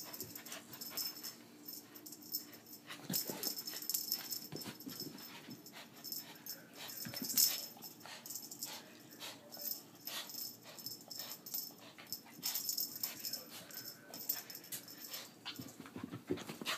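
A corgi at play with a feather wand toy: its breathing and small noises of excitement, mixed with many short clicks and scuffles.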